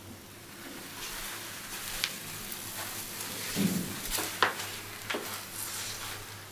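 A sizzling, crackling hiss with a few sharp snaps and a soft low whoosh in the middle, like fizzing foam or a designed magical effect.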